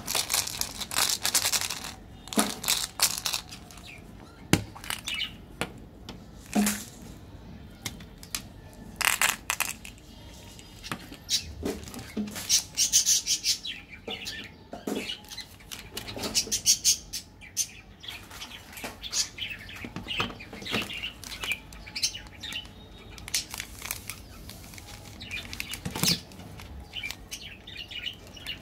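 Plastic chocolate-bar wrappers crinkling and rustling in the hands, in irregular bursts of crackle as the bars are handled and torn open.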